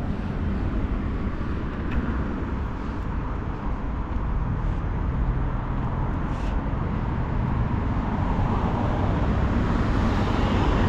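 Road traffic on a busy main road: a steady rumble of passing cars, swelling toward the end as a vehicle comes closer.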